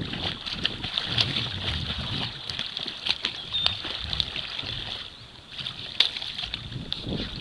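Water splashing and sloshing as a person in a dry suit kicks in the water and hauls onto a kayak, with scattered sharp splashes and knocks, the strongest about six seconds in.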